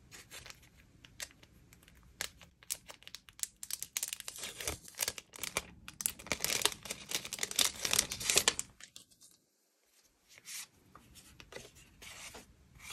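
Paper envelope being torn open and rustled as planner cards are pulled out: a run of crackly paper tearing and crinkling, busiest in the middle and stopping about nine seconds in, followed by faint handling.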